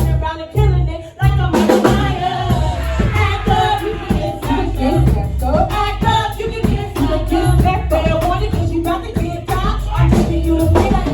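Hip-hop music with a heavy bass beat and vocals over it; the beat drops out briefly about a second in.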